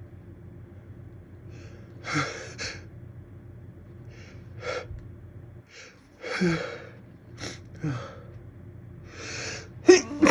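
A person in a slow sneeze build-up: a series of short gasping in-breaths, some voiced, a second or two apart. A sharp sneeze bursts out right at the end.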